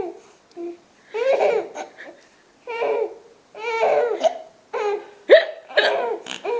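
A young child's high-pitched laughter in repeated short bursts, mixed with a woman's hiccups. A sudden, sharp hiccup about five seconds in is the loudest sound.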